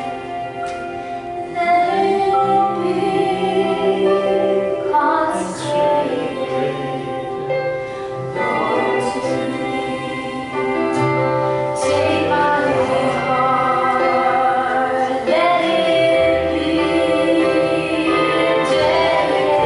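Church music: voices singing a hymn over held instrumental chords, with a bass line moving note by note underneath.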